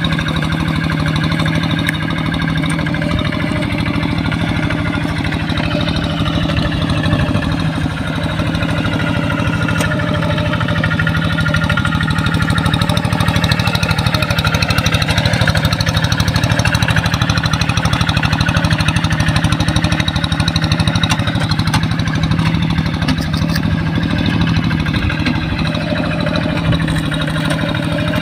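Single-cylinder diesel engine of a two-wheel hand tractor running steadily under load as it drags a moldboard plough through flooded paddy mud, with a fast, even beat of firing pulses.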